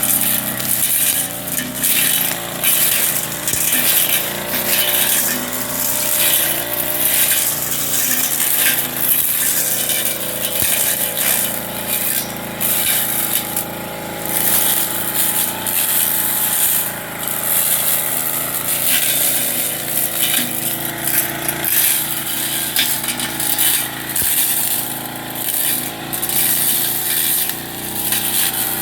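Backpack brush cutter's small engine running steadily at cutting speed, its blade slashing through weeds and palm frond debris in frequent short hits.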